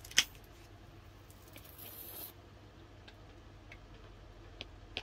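Craft supplies being handled at a work table: one sharp click just after the start, then a brief hiss and a few light taps.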